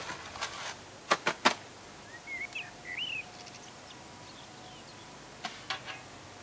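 Shovel working soil: a scrape, then a quick run of three sharp knocks, and two more knocks later on. A bird chirps a few times in between.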